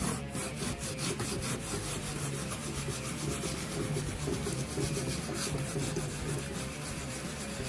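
Green abrasive scrub pad rubbed back and forth in quick strokes over soapy, spray-painted rubber dash trim, wet-scuffing the glossy paint down to a matte finish.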